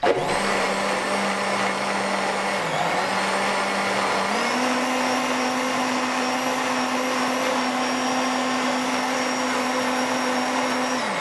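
Countertop blender motor running at speed, grinding soaked sunflower seeds and water into a thick sunflower milk. It starts abruptly with a steady whir, dips briefly in pitch about three seconds in and steps up a little after four seconds, then switches off and spins down near the end.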